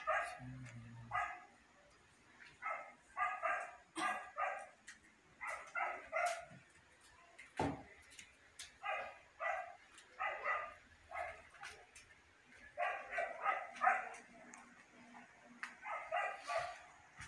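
A dog barking over and over, in short runs of two or three sharp, high barks.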